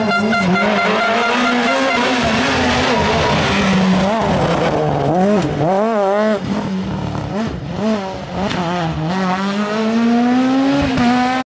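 Peugeot 207 rally car engine revving hard through a tight bend, its note swinging rapidly up and down with throttle blips and gear changes, then rising steadily as the car accelerates away. A spectator's air horn sounds a steady chord over it for the first couple of seconds.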